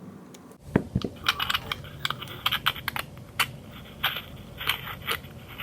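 Quick irregular plastic clicks and clatter from a Sweet Talking Ken doll being handled, its controls worked while working out how to record.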